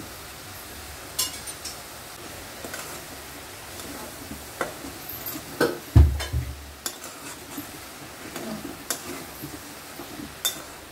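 Steel spatula stirring in a metal kadai: scattered clinks and scrapes against the pan, with one heavier knock about six seconds in, as spices are mixed into frying onions.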